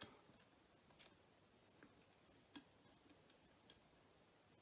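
Near silence broken by about five faint, irregular small clicks: a small screwdriver and the plastic parts of a model locomotive chassis and bogie being handled.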